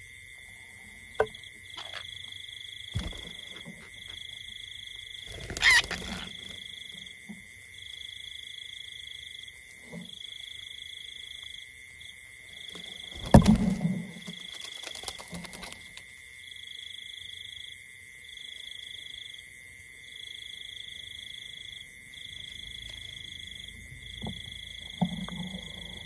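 A steady high-pitched tone with a second, higher tone pulsing on and off about once a second, with a few scattered knocks and rustles; the loudest is a sharp knock with a short rustle about halfway through.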